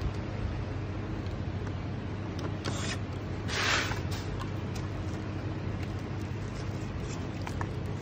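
Steady low hum in the background, with a few light clicks and, a little over three seconds in, a brief rustling scrape as an air fryer's touch-panel circuit board is lifted out of its plastic housing and film wrapping.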